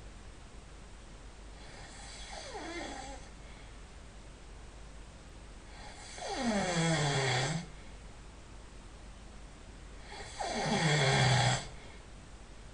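A man snoring in his sleep: three snores about four seconds apart, each lasting about a second and a half, with a pitch that drops as it goes. The first is faint, the last two loud.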